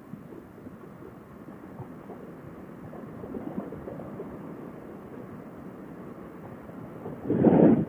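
Steady muffled riding noise, wind and road rumble, picked up by a motorcycle helmet's Bluetooth headset microphone while cruising. Near the end comes a brief, much louder rush of noise lasting under a second.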